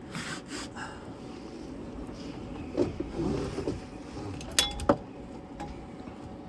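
Hand tools being handled on metal: light scraping and rubbing, with two sharp metallic clinks a little over halfway through.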